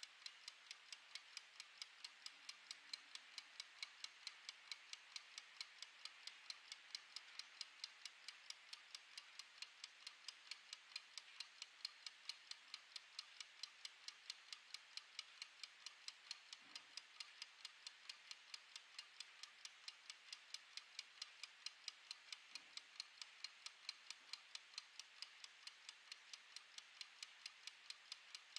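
Mechanical wind-up kitchen timer ticking steadily and faintly, about three light clicks a second from its clockwork running down.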